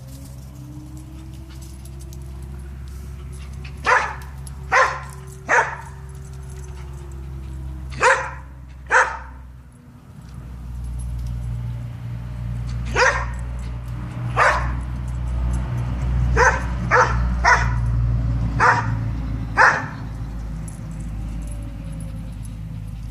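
Springer spaniel barking in short, sharp single barks, about a dozen in loose clusters with pauses between, over a steady low rumble.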